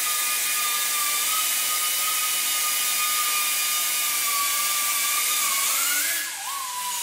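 Handheld cut-off grinder cutting through a 5/16-24 threaded steel rod: a steady high whine with the hiss of the wheel in the metal. About six seconds in the pitch rises briefly, then falls lower and the sound gets quieter.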